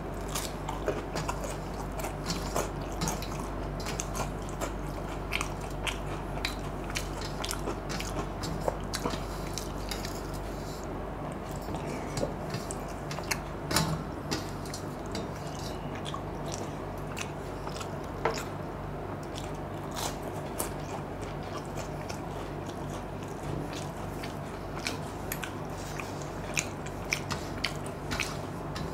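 Close-up eating sounds: mouth chewing and smacking on a fried potato fritter and water-soaked fermented rice (panta bhat), with many short wet clicks and squelches throughout. Fingers also squish and scoop the rice in water in a steel plate, over a steady low hum.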